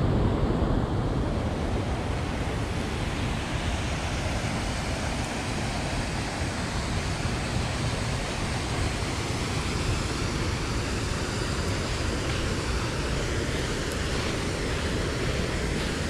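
Mountain stream rushing over gravel and spilling through a concrete weir: a steady noise of running water, slightly louder in the first second.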